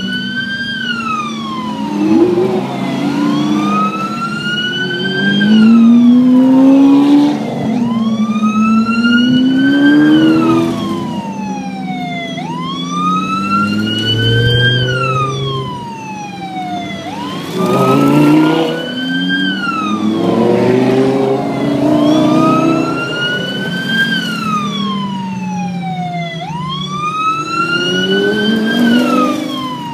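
A police escort siren wails, each sweep rising quickly and then falling slowly, repeating every four to five seconds. Underneath it, passing Lamborghini engines rev as the cars accelerate, loudest about six and eighteen seconds in.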